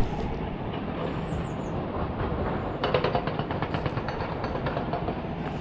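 Quarry machinery working: a steady mechanical rumble with a run of rapid rattling clatter from about three seconds in.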